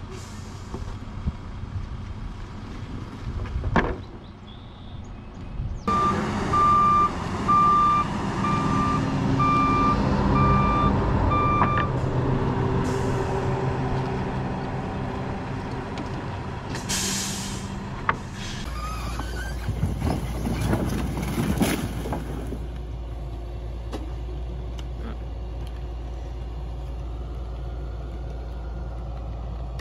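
Heavy truck diesel engine running under load, with a reversing alarm beeping evenly, a little more than once a second, for about six seconds. A short hiss of released air follows, then a steady low hum under the engine.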